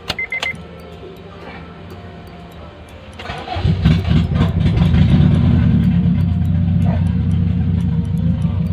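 Honda CR-V 2.4-litre four-cylinder engine running with its exhaust pipe removed: a moderate low hum, then about three and a half seconds in it gets much louder and stays loud and open-sounding. The engine has a misfire, later traced to a dead number 4 cylinder. A brief high beep sounds right at the start.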